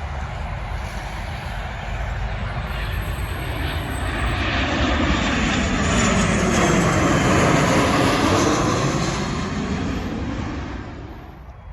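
Jet airliner passing by: engine noise swells to a peak over a few seconds, with a sweeping, shifting tone, then fades away quickly near the end.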